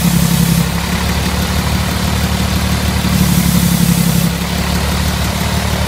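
Heavy truck diesel engine running steadily on a workshop stand. A hiss in the upper range fades about half a second in, returns around three seconds and fades again about four seconds in.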